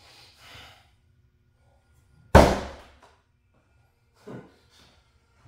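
A throwing axe hitting a wooden target board: one sharp, loud thunk about two seconds in, with a short decaying tail.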